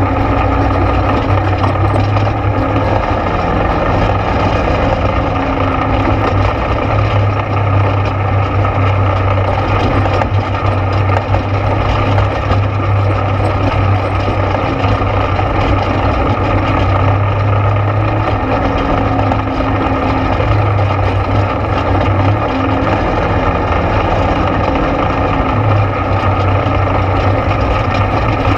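ATV engine running steadily while riding a trail, its note swelling and easing a little every few seconds.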